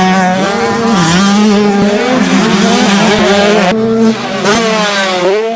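Motorcycle engine revving, its pitch rising and falling several times.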